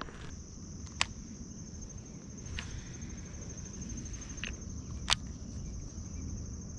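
Insects trilling steadily in a high, fast-pulsing chorus, with two sharp clicks about a second in and about five seconds in.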